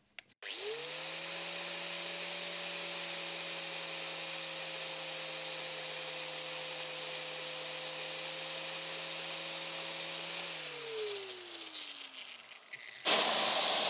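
Angle grinder starting up and running at speed with a steady whine, its disc pressed against the outer race of a sealed ball bearing on a bolt to spin the bearing up. About ten seconds in, the grinder is switched off and its pitch falls as it runs down. A loud hiss starts just before the end.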